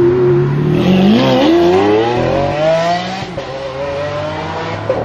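Lamborghini Aventador's V12 engine accelerating hard: its note climbs steeply for about two seconds, drops sharply at an upshift about three seconds in, then pulls on at a lower pitch and more quietly as the car moves away.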